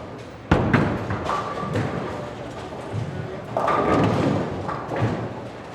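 Bowling alley ambience: a sharp loud hit about half a second in and a second one just after, then a longer clatter near the middle, over a background murmur of voices.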